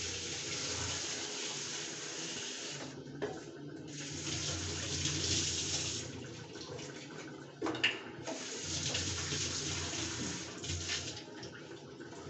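Water running and splashing, cutting off briefly twice, about three seconds in and again near eight seconds, with a light metal clink at each break.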